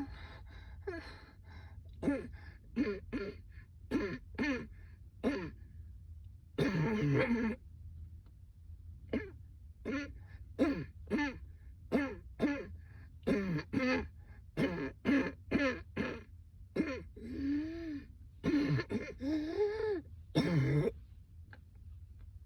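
A woman's coughing fit: dozens of short coughs in quick clusters, with a few longer, drawn-out coughs between them, going on without a break.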